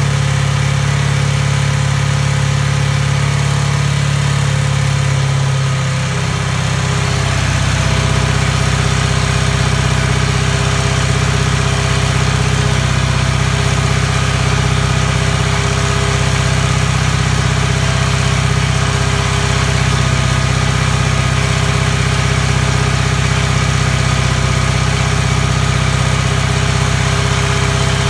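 Vintage Sunbeam motorcycle engine idling on test run. About six seconds in the idle drops to a slightly lower, steadier speed and holds there.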